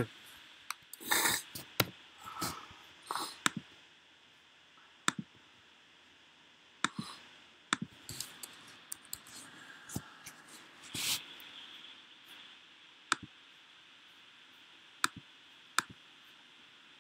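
Sparse, irregular clicks of laptop keys and mouse or trackpad buttons, a few seconds apart, with a few brief soft noises between them.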